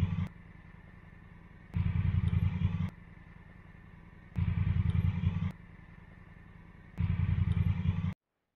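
Honda Africa Twin's twin-cylinder engine idling, picked up by an action camera's built-in microphone in spliced clips. The clips switch back and forth: loud, about a second each, with the camera uncovered, and much quieter and muffled with a cover over the camera's back. Loud four times, then the sound cuts off abruptly near the end.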